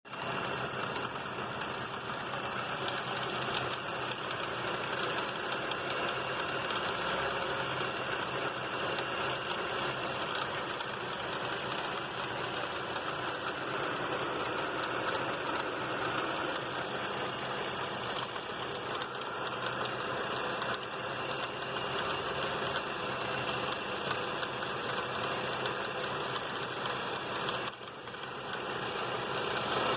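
1995 Mercury Mystique engine running steadily with a weird noise from the timing belt area, whose cause the owner cannot identify. The noise dips briefly near the end.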